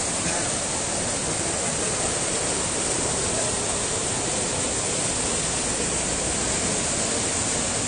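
Muddy floodwater rushing fast down a concrete channel and spilling over a small drop: a steady, unbroken rush of water.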